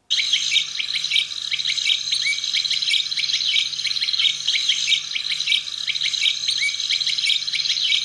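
Field recording of birds calling: many short, downward-slurred chirps repeated rapidly and overlapping, over a steady high-pitched background drone.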